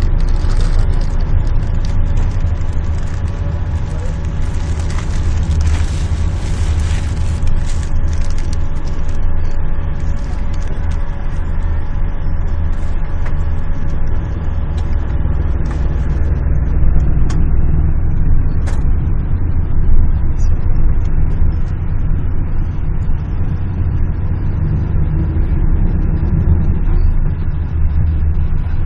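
Coach bus heard from inside the passenger cabin while driving: a loud, steady low rumble of engine and road noise, with faint rattles.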